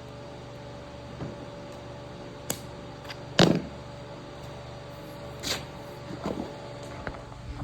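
Several separate knocks and clunks of carpentry work, the loudest about three and a half seconds in, over a steady hum.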